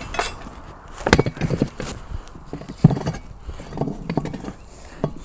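Irregular knocks and thumps as a car tyre on a steel wheel is handled and turned over on a tree stump beside a manual tyre changer, loudest about three seconds in.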